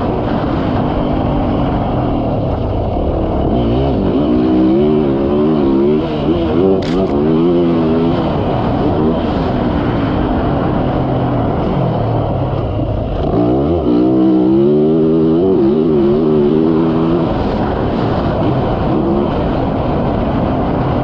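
Yamaha YZ450F's single-cylinder four-stroke engine being ridden hard on a motocross track, its revs climbing and dropping repeatedly in two bursts with steadier running in between. A single sharp click is heard about seven seconds in.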